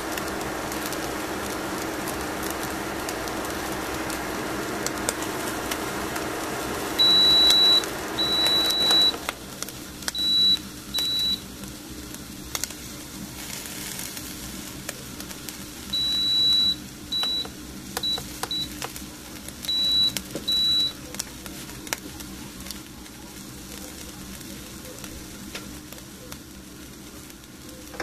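An electronic beeper sounding high, single-pitched beeps in two irregular runs of long and short tones, a few seconds apart. A steady appliance hum cuts off suddenly about nine seconds in, during the first run of beeps.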